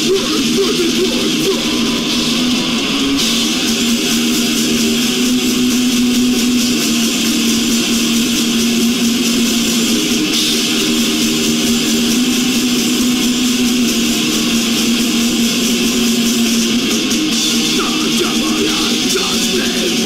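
Heavy metal band playing live and loud: distorted electric guitars and bass over drums and cymbals, in an unbroken dense wall of sound.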